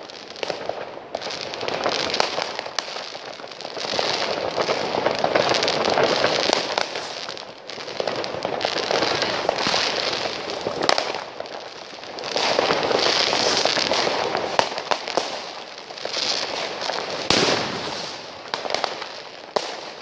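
Fireworks and firecrackers going off continuously: a dense crackle of many overlapping bangs and pops, with sharp louder bangs scattered throughout and a loud one near the end.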